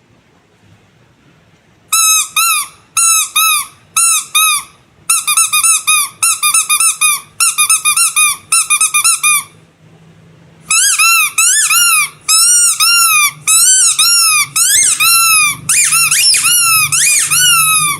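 Rubber squeaky animal toy squeezed over and over, each squeeze giving a short high squeak that rises and falls in pitch. The squeaks start about two seconds in, come in quick groups, stop for about a second near the middle, then return in a longer, faster run.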